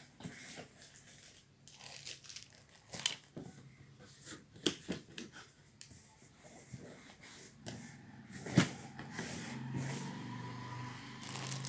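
Cardboard headphone box being handled and opened: scattered taps, clicks and rustling of card, with one sharp knock about eight and a half seconds in. Near the end comes a longer, steadier rustle as the inner box slides out of the outer one.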